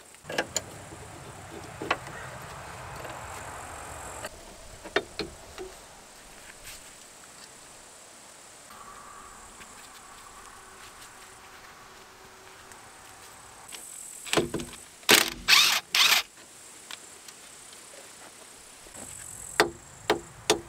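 Hand tools and steel suspension parts clinking and clanking as a stabilizer link is unbolted from a Peugeot Partner's front suspension: scattered sharp clicks, a quick flurry of loud clanks about two thirds of the way through, and a few more near the end.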